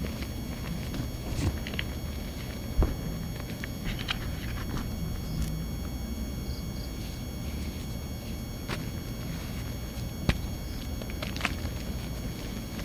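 Dry, flaky reformed cornstarch crunching and crumbling, with a handful of sharp crackles scattered through. A steady electrical buzz runs underneath.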